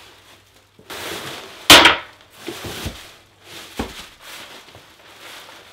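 Cardboard box and white packing material being handled and pulled out: rustling and scraping, with a sharp loud crunch about two seconds in and a smaller one near four seconds.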